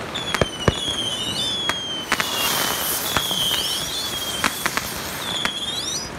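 A burning toy monster truck crackling with many sharp pops, over a high whistle that dips and then rises, repeating about once a second. A couple of seconds in comes a spell of loud hissing as sparks spray out of the fire.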